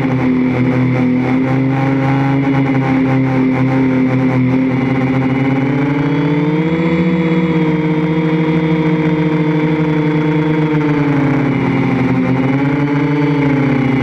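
3DR IRIS quadcopter's electric motors and propellers whining steadily, heard from the onboard camera. The pitch rises about six seconds in, dips near the end and rises again as the throttle changes.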